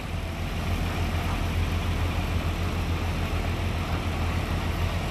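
Semi-truck's diesel engine running at low idle as the tractor-trailer creeps forward close by, a steady low drone.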